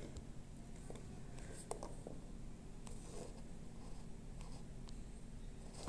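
Quiet room with a steady low hum and a few faint, scattered clicks and rustles.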